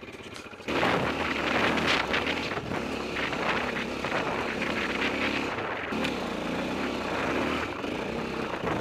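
Adventure motorcycle engine running under load on a rough dirt climb, heard from on the bike with wind on the microphone. It jumps much louder about a second in.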